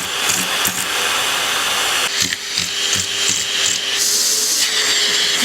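Vacuum cleaner running steadily with a hiss and a held hum. The sound of the airflow changes about two seconds in and again near the end, as the nozzle is moved.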